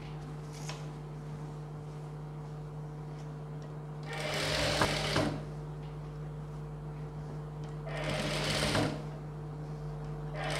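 Industrial single-needle sewing machine stitching through blouse fabric in two short runs, about four and eight seconds in, with a steady hum between the runs.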